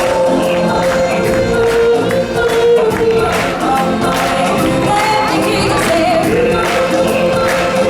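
A choir of voices singing with instrumental backing, with long held notes.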